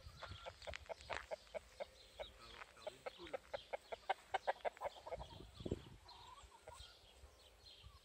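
Chickens clucking: a quick run of short, repeated clucks that is busiest in the middle and thins out near the end.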